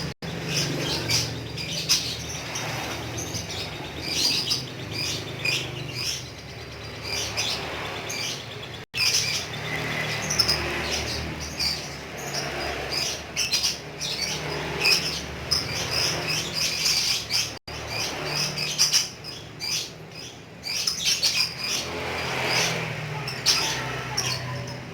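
Lovebird chattering in a long, unbroken run of rapid high chirps and squeaks, the 'ngekek' chatter song. The run is broken by a brief gap about every nine seconds.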